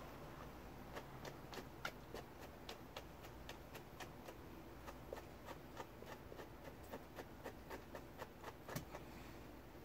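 Grooming brush working through an Angora rabbit's belly wool in short quick strokes: a steady run of faint clicks and ticks, about three a second, over a low hum.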